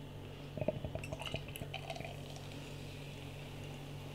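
Imperial stout being poured into a glass: faint splashing and small clicks for about a second and a half, then only a low steady hum.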